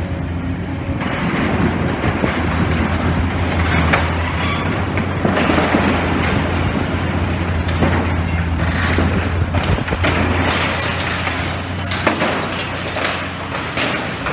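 Demolition excavator working: a steady low diesel engine hum under continuous crunching, scraping and clattering of breaking building debris, with several sharp knocks.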